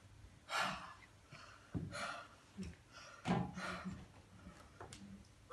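A few short breathy gasps and sighs from a person, about four of them spaced a second or so apart.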